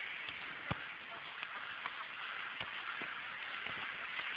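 Steady outdoor hiss on a phone recording of football training, broken by a few dull thumps of a football being kicked, the loudest a little under a second in.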